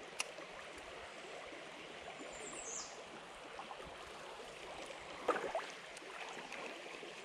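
Shallow stream water flowing in a steady rush, with one sharp click just after the start.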